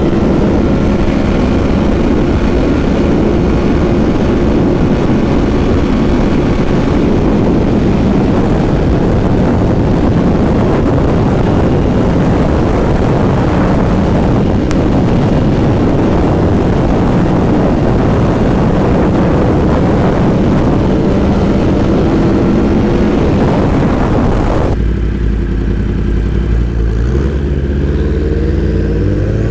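Yamaha R1 sport bike's inline-four engine through a full Graves exhaust, running hard under way with a dense rushing noise over the engine note. About 25 seconds in, the rushing noise drops away abruptly and the engine note rises as the bike revs up.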